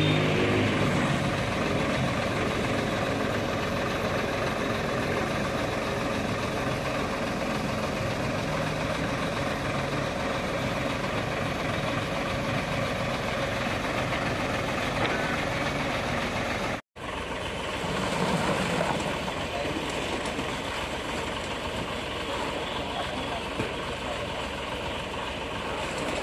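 Hino 500 concrete mixer truck's diesel engine running steadily at a building site pour. The sound cuts out for an instant about two-thirds of the way through, then carries on the same.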